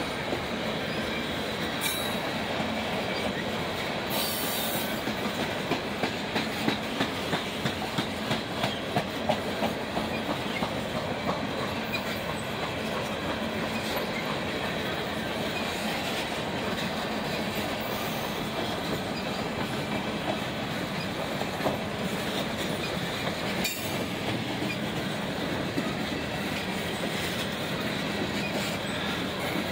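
Empty coal hopper cars of a freight train rolling past: a steady rumble of steel wheels on the rail, with a run of rhythmic clacks, about two a second, several seconds in.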